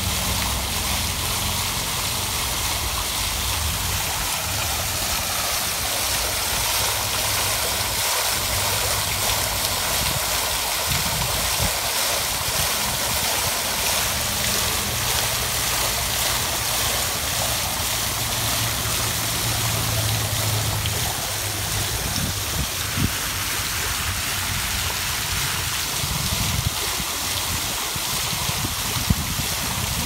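Water falling from the upper bowl of a tiered stone fountain and splashing steadily into its tiled pool.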